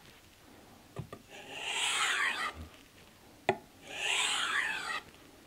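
Kitchen knife stropped by hand on a leather block loaded with 3-micron diamond emulsion, deburring the edge: two long scraping strokes, each begun with a light tap as the blade is set down flat on the leather.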